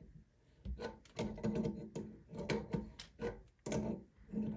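A wrench being worked on a bidet water-supply fitting, tightening it in short turns: irregular clicks, knocks and scraping of metal on the fitting, about two or three a second.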